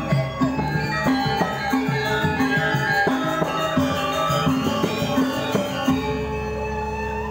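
Balinese gamelan music: bronze metallophones playing many ringing notes over a repeating low melody. About six seconds in the low pattern stops and the notes ring on.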